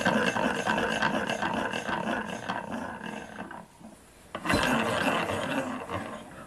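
Rhombic-drive Stirling engine spun by hand, its crank linkage and roller bearings whirring and rubbing as it coasts down over about three seconds. A second spin about four seconds in runs down again, more briefly.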